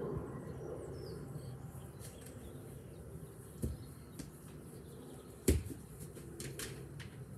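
A football being kicked on a lawn: two sharp thuds, a softer one about three and a half seconds in and a louder one about five and a half seconds in, over a steady low background rumble.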